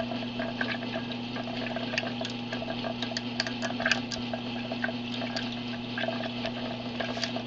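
Tornado-simulator machine running at its F1 setting: a steady electric hum under a hiss, with scattered irregular light clicks.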